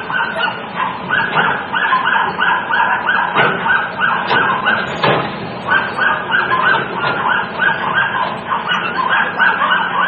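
Rapid, repeated honking calls, about three or four a second, over a low steady hum, with two sharp knocks about three and five seconds in as a garbage truck's automated arm handles a cart.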